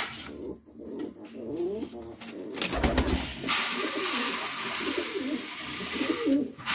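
Domestic pigeons cooing in repeated low, rising and falling calls. About three seconds in there is a brief low thump, followed by a steady hiss through the rest of the calls.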